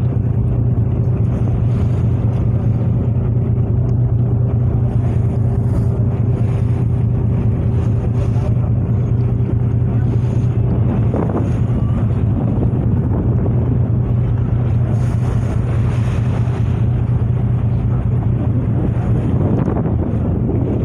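Steady low drone of a passenger ship's engines under way, with wind buffeting the microphone. A fainter, higher steady hum stops about halfway through.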